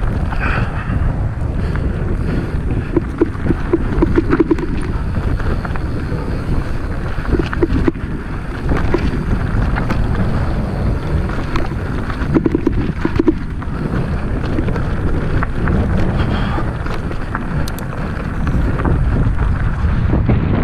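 Wind buffeting the microphone of a camera riding on a mountain bike, over the rumble of knobby tyres rolling on a dirt forest singletrack. Frequent small clicks and rattles come from the bike jolting over roots and stones.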